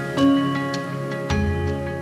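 Background music: slow, calm instrumental with struck, ringing notes over held low tones, a new note coming in about once a second.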